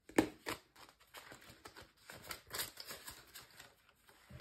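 Canadian polymer banknotes and a cash envelope being handled: a couple of sharp clicks near the start, then light, irregular rustling and crinkling.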